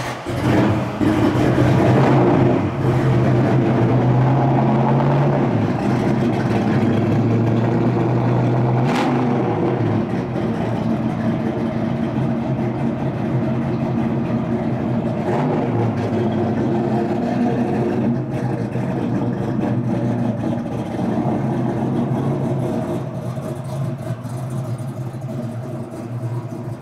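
Ford Maverick's engine running steadily at low revs, with the pitch changing briefly a few times.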